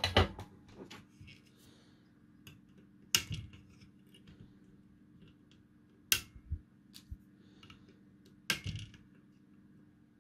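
Flush side cutters snipping off capacitor leads on a circuit board: four sharp snips a few seconds apart, with small handling ticks between them.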